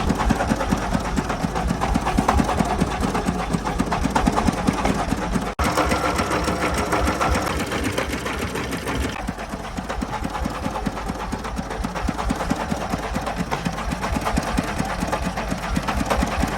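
Single-cylinder diesel engine of a công nông farm truck running with a rapid, steady chugging. The sound cuts out for an instant about five and a half seconds in.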